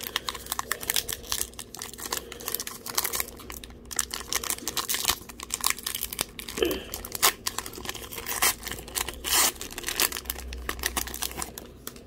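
Wrapper of a baseball trading-card pack being torn open and crinkled in the hands, a dense run of irregular sharp crackles.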